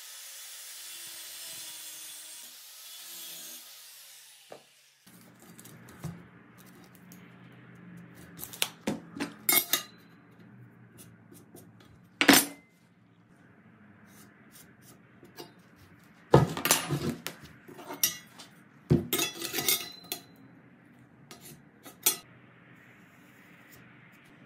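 Sharp clacks and knocks of steel square tubing and a metal speed square being handled and set down on a plywood workbench, the loudest about twelve and sixteen seconds in. A DeWalt angle grinder's high whir fades away over the first four seconds.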